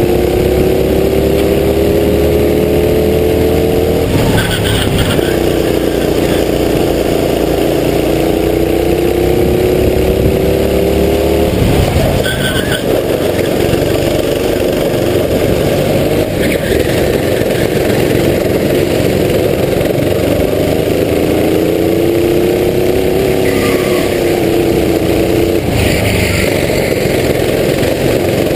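Racing kart engine heard onboard at full race pace, its revs climbing steadily along the straights and dropping sharply where the throttle is lifted into corners, about four seconds in, about twelve seconds in and again near the end, over a constant rush of wind and road noise.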